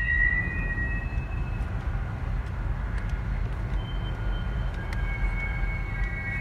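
Distant rail-yard noise from diesel locomotives: a steady low rumble with wind on the microphone. A high-pitched whine of several steady tones fades out in the first second and comes back about five seconds in.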